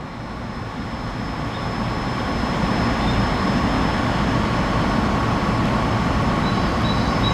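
A low, noisy rumble that grows louder over the first three seconds and then holds steady.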